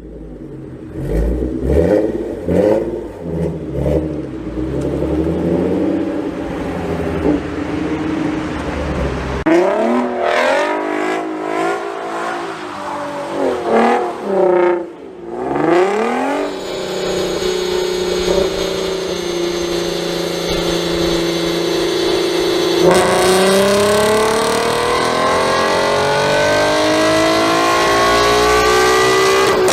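Nissan Z V6 (370Z, 3.7L) with a Motordyne Shockwave cat-back exhaust, revved in sharp blips whose pitch shoots up and falls back. It then holds a steadier note before accelerating hard in the last several seconds, its pitch climbing.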